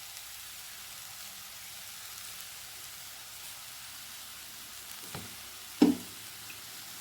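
Raw jackfruit stir-fry with coconut oil drizzled over it, sizzling steadily in the pan. Two short knocks about five and six seconds in, the second louder.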